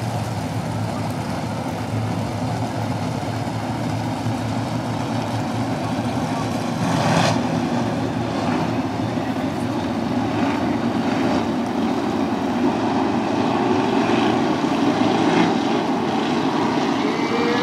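A field of USAC sprint cars' 410 V8 engines racing around a dirt oval: a dense, steady drone of many engines together, swelling a little toward the end, with a few brief sharper bursts from about seven seconds in.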